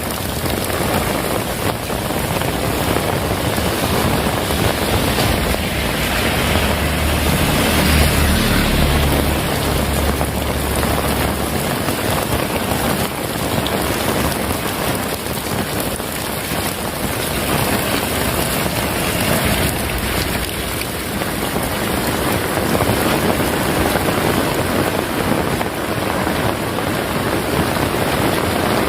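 Heavy rain falling steadily, with a low rumble from about six to twelve seconds in.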